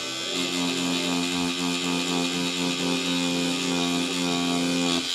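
Tattoo machine buzzing steadily, an even hum that holds without change.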